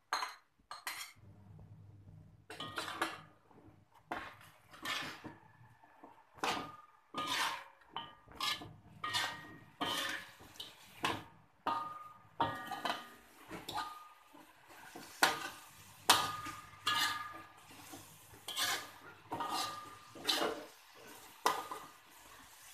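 Slotted metal spatula scraping and clanking against a metal wok while stirring chicken pieces and onion in sauce, in repeated irregular strokes about one or two a second, some with a brief metallic ring.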